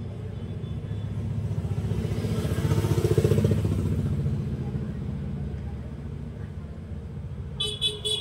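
A vehicle engine, motorcycle-like, passes by, growing louder to about three seconds in and then fading. Near the end a small hand bell starts ringing in quick repeated strokes.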